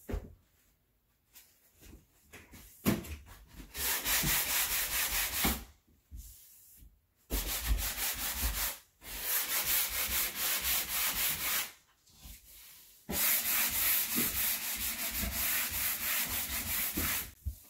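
Sandpaper rubbed by hand over primed wooden cabinet face frames, scuff-sanding the dried primer before paint. Quick scratchy strokes come in four spells of a few seconds each, with short pauses between.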